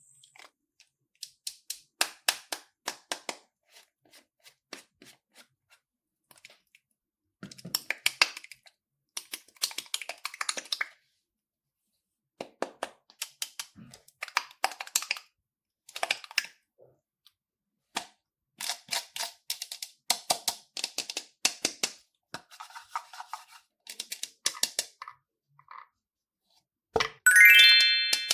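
Slime being squeezed and worked by hand, giving clusters of sharp crackling clicks and pops with short pauses between them. A loud ringing tone comes in about a second before the end.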